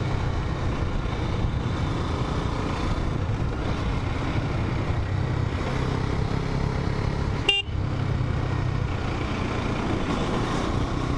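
KTM 250 Duke's single-cylinder engine running at a steady pace, with wind and road noise. A short horn toot sounds once, about seven and a half seconds in.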